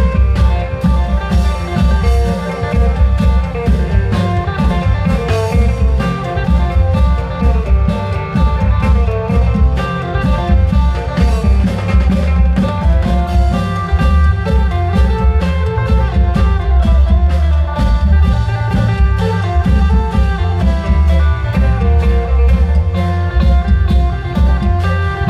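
Thai klong yao long-drum band playing through an amplified sound system: continuous dense drumming with deep bass beats under an amplified plucked-string melody.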